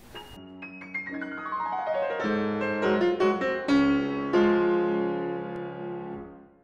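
Short piano music jingle: a quick run of notes building up into a held chord that fades and stops near the end.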